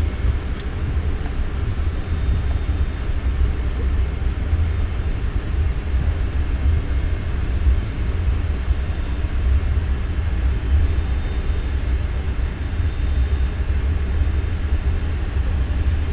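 Cabin noise of a McDonnell Douglas MD-83 taxiing: a steady low rumble from the rolling airliner and its rear-mounted jet engines at taxi power, with a faint steady hum above it.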